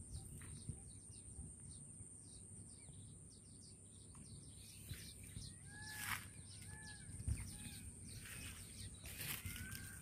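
Wild birds calling faintly: quick high chirps in the first half, then from about halfway short arching calls repeated roughly once a second, over a steady high whine. A couple of brief rustles cut in near the middle and toward the end.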